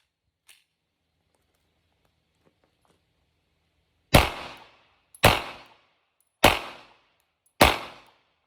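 Four 9mm shots from a Glock 19 pistol, fired a little over a second apart in the second half, each with a short decaying echo.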